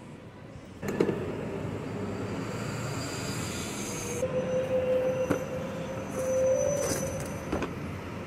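Passing vehicle noise that rises suddenly about a second in, with a steady whining tone for about three seconds in the middle and a few sharp clicks.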